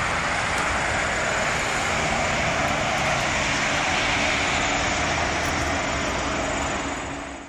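Steady noise of highway traffic, cars and trucks passing on the road below, fading out near the end.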